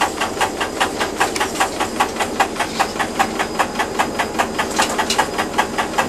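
Tourist train's engine running with an even, regular pulse of about five beats a second, heard from inside a passenger carriage as the train rolls slowly.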